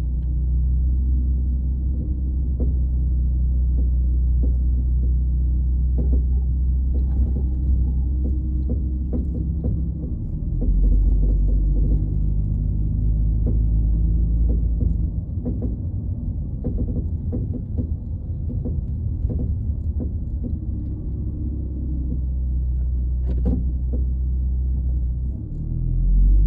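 2014 Dodge Charger driving at low speed: a steady low rumble with irregular short clunks scattered through it, two of them louder, about a quarter of the way in and near the end. This is the clunk that shows up after more than 15 minutes of slower driving.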